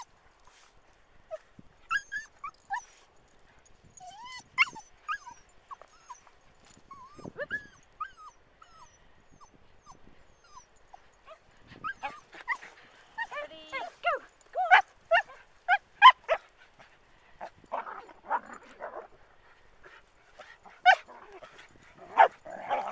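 Manchester Terriers yipping and whining as they run, with high cries that rise and fall. Around the middle comes a quick run of sharp, loud barks, about three a second, and more barks come near the end.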